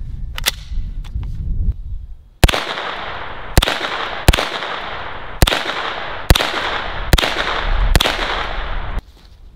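Seven semi-automatic shots from an HK SP5 9mm short-barreled rifle, fired singly about a second apart starting a couple of seconds in, each with a trailing echo. A few light clicks come before the first shot.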